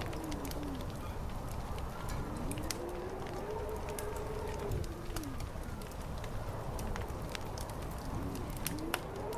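Fire crackling with scattered sharp pops over a steady low rumble, while wind howls in slow moans that rise and fall. One moan fades in the first second, a long one comes through the middle, and another starts near the end.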